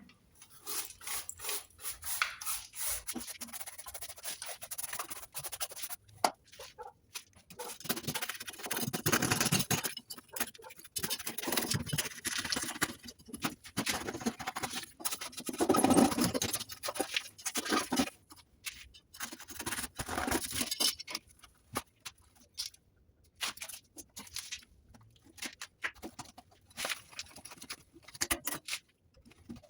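Irregular hand scraping, scratching and cutting as styrofoam insulation and mesh are cut and cleared away, with the loudest scrapes around halfway through.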